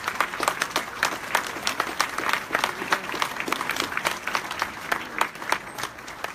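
Audience applauding: many hands clapping in a dense, continuous patter that eases off a little near the end.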